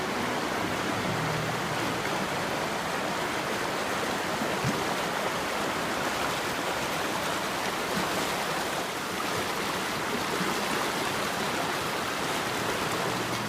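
A stream's flowing water making a steady, even rushing sound.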